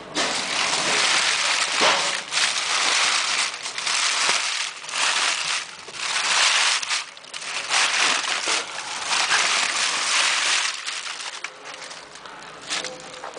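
Black plastic rubbish bag rustling and crinkling close to the microphone in irregular surges, easing off near the end.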